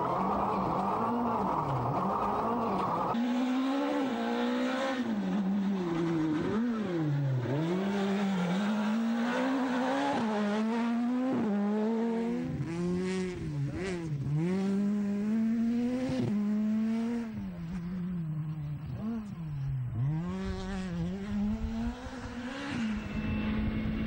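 Rally car engine revving hard and falling back again and again as it shifts gear and lifts for corners, with tyre and gravel noise beneath. For the first three seconds there is only a steadier rush of noise.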